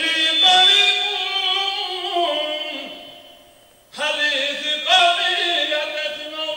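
A man's voice chanting an Islamic invocation through a microphone in long, held melodic notes. The chant fades away about three seconds in and starts again a second later.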